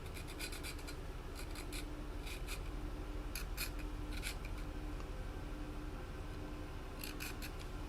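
Caliper jaw scratching a mark into a ukulele bridge: faint short scraping strokes, a few clustered together and then pauses, the last ones near the end.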